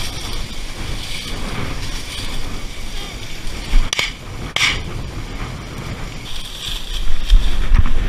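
Wind buffeting a gun-mounted camera's microphone while dry prairie grass brushes against the gun as the hunter walks through it, with a couple of sharp knocks about four seconds in.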